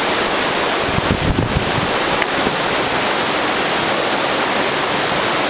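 Waterfall rushing steadily, with a brief low buffeting on the microphone about a second in.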